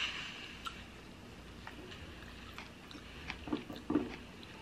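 Someone quietly chewing shine muscat grapes, with scattered faint clicks and two short, light knocks near the end as a grape is lifted out of a glass mug.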